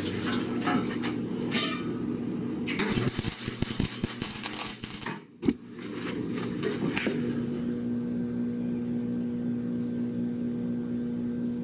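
Metal clinks and rattles of steel square tubing and locking clamps being handled. About three seconds in comes a couple of seconds of dense crackling noise, then one sharp click, then a steady hum.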